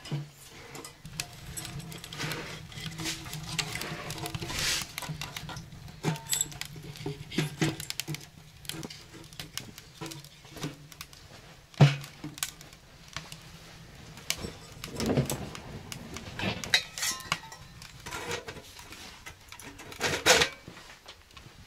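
A small steel wood stove being lit and tended: scattered crackling of the kindling fire, with knocks and clinks of wood and the metal stove door being handled. The sharpest knock comes about twelve seconds in, and a clank of the stove door near the end.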